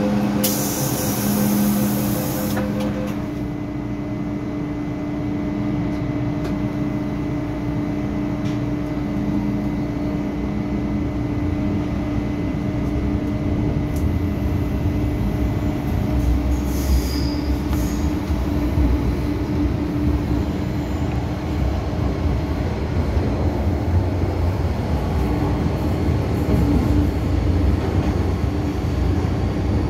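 An MTR M-Train metro carriage, heard from inside by the doors. In the first few seconds there is a repeating door-closing warning tone and a brief hiss as the doors shut. The train then pulls away and runs with a steady motor hum and wheel-on-rail rumble, which grows louder from about halfway.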